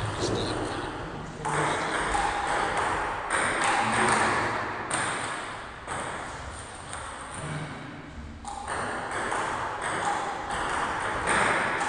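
Table-tennis gym ambience: ping-pong balls being hit and bouncing off bats and tables, over a steady haze of hall noise.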